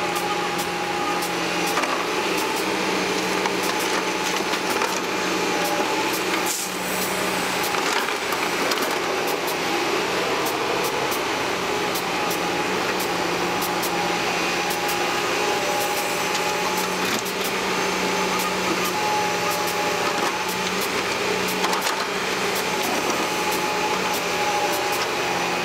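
Tracked Caterpillar excavator's diesel engine and hydraulics running steadily as it digs soil and loads a dump truck. The hum carries a few steady held tones, with frequent light ticks and scrapes over it.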